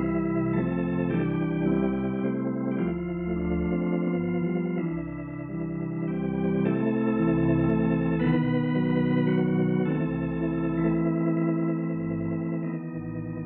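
Organ playing slow, held chords that change every second or two over a bass line.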